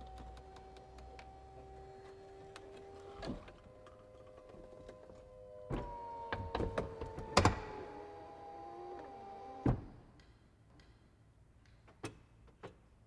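BMW 4 Series Convertible's retractable folding hardtop closing: a steady motor whine that stops with a clunk about three seconds in, then after a short pause a second, slightly higher whine with clicks and a loud clunk. The whine cuts off with a final thunk near ten seconds in.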